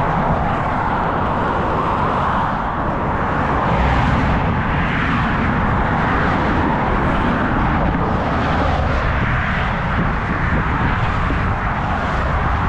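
Steady noise of highway traffic passing close by, a continuous rush of tyres and wind with no single loud knock.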